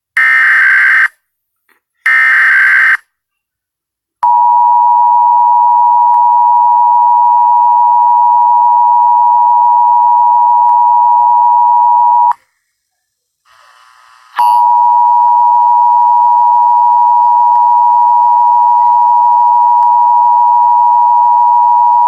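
Emergency Alert System tones broadcast on TV. Two short data bursts of the SAME digital header, about a second each, are followed by the steady two-tone EAS attention signal held for about eight seconds. After a brief break the attention signal sounds again for another eight seconds.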